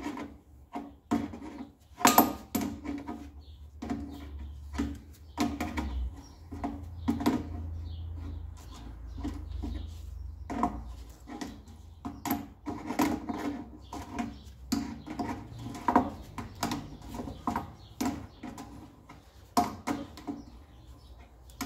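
Irregular clicks, taps and light knocks, some in quick clusters, as an air compressor's tube and its fitting are handled and worked into their connection by hand.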